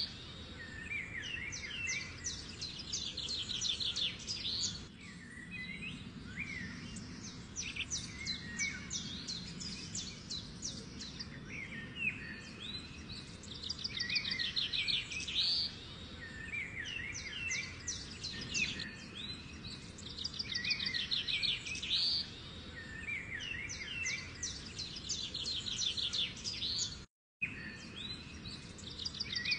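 Birds chirping and trilling in rapid high runs over a steady low hum, the same pattern coming back about every six seconds like a looped birdsong recording; the sound cuts out for a moment near the end.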